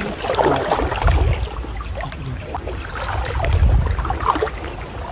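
Water swishing and sloshing as people wade waist-deep through floodwater, with low rumbling surges about a second in and again past the middle.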